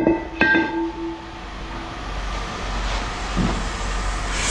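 Scrap metal clanging into a metal bin: two sharp knocks about half a second apart, the second ringing on for about a second and a half with a metallic tone, over a steady low hum.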